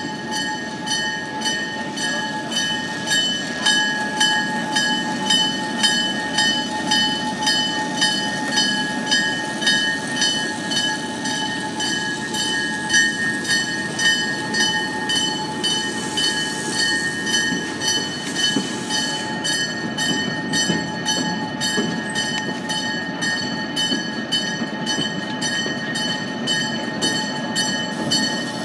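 Train in motion, its wheels clicking over the rail joints in a steady, regular rhythm, with a steady high whine over the running rumble.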